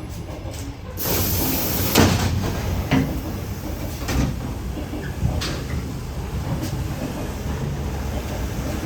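ED4M electric commuter train: a steady low rumble, a loud burst of air hiss about a second in that lasts about a second, then short knocks about every 1.2 seconds.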